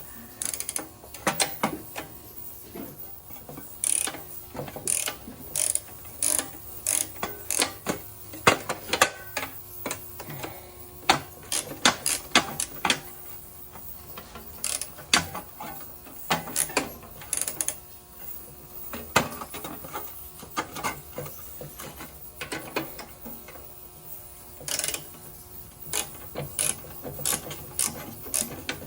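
Hand ratchet wrench clicking in quick runs as bolts are worked loose, stopping and starting again between strokes, with a quieter stretch just past the middle.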